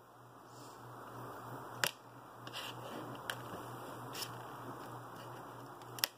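Small LEDs and thin wire being handled by hand on a tabletop: a few sharp little clicks and taps, the loudest near the end, over a faint steady hum.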